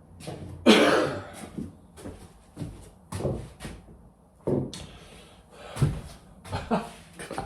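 A series of irregular knocks and bumps from objects being handled and set down, the loudest, with a short ring after it, about a second in.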